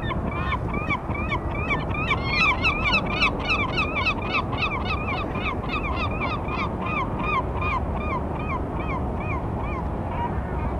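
Herring gulls giving their courtship long call: a fast run of short, arched calls, about four or five a second, thinning out and stopping near the end, over steady low background noise.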